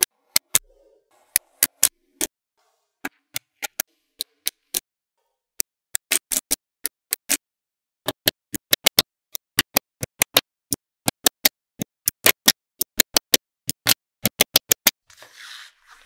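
Small neodymium magnetic balls clicking sharply as they snap together and onto a ball panel, in an irregular run of single clicks that grows much faster and denser about halfway through. A brief soft rustle comes near the end.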